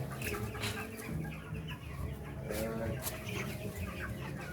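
A flock of 17-day-old chickens clucking and cheeping, with a few sharp clicks scattered through it.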